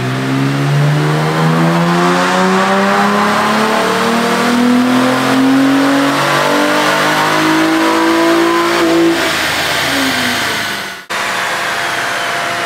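Honda Accord V6's 3.5-litre J-series V6 making a wide-open-throttle baseline pull on a chassis dyno. The revs rise steadily in one long sweep for about nine seconds, then the throttle closes and the revs fall away.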